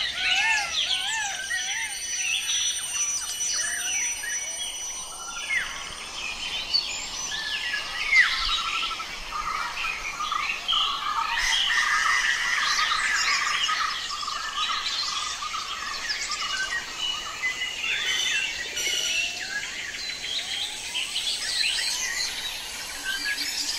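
Several birds chirping and singing over one another without a break, one of them repeating a quick run of notes about halfway through.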